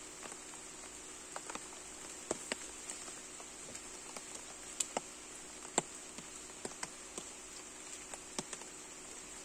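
Scattered raindrops tapping irregularly on a rain poncho and the boat, a few louder taps about five and six seconds in, over a steady high-pitched insect drone.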